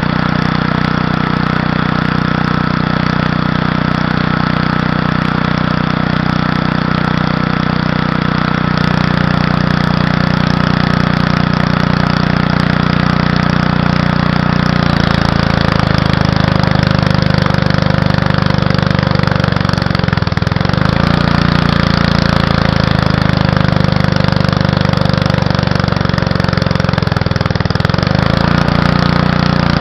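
Small gasoline engine driving a homemade alternator welder, running steadily. From about halfway its note drops and wavers, sagging twice, as it bogs under the welding load: the engine is too small for the welder.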